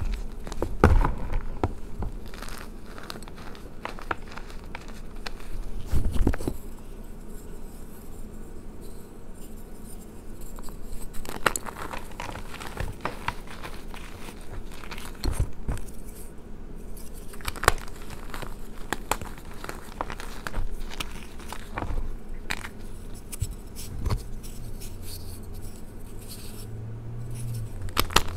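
Reformed gym chalk blocks crushed and crumbled by hand in a tray of chalk powder: irregular crunches and snaps of blocks breaking, with softer powdery squeezing and scraping between. The loudest crunches come about a second in and about six seconds in.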